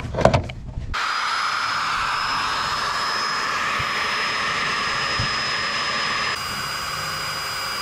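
Corded electric drill running steadily with a high whine as it drills out a spot weld in the car's sheet-metal body panel. It starts abruptly about a second in and drops a little in level about six and a half seconds in.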